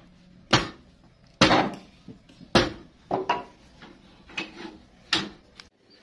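A series of sharp knocks, about six at irregular intervals, each dying away quickly.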